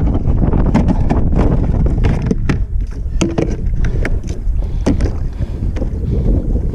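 Wind blowing on the microphone and water splashing against a kayak's hull, with scattered sharp clicks and knocks from the boat.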